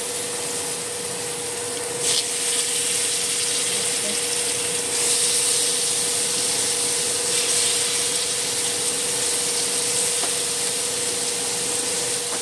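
Slices of king fish sizzling in hot oil in a frying pan, the sizzle jumping up sharply about two seconds in and again about five seconds in as more slices are laid in. A steady hum runs underneath.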